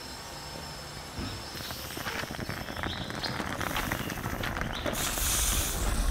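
Aluminium stovetop moka pot brewing on a gas camping burner: coffee bubbling and crackling up into the top chamber, growing louder into a strong hissing sputter near the end as steam pushes through, the sign that the brew is finishing.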